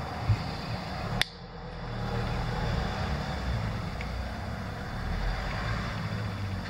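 Low, steady rumble of road traffic, with one sharp click about a second in.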